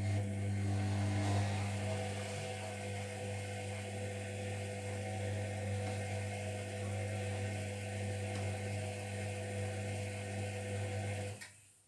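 Zerowatt/Hoover Performa 1000 HZ1042 washing machine's drum motor running during the wash, a steady low hum with a hiss over it, turning the drum for one tumble and stopping suddenly about eleven seconds in.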